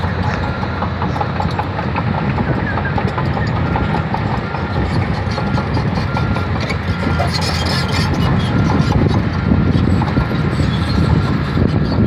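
Komatsu D155A crawler bulldozer on the move: its diesel engine runs steadily, with rapid clicking and clanking from its steel tracks.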